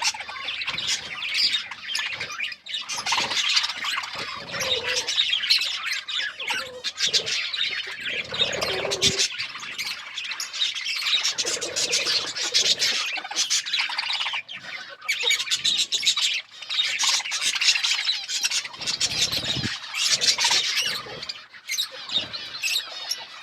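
A flock of pet budgerigars chattering and chirping without pause, in a dense stream of high twitters and squawks with many short clicks mixed in.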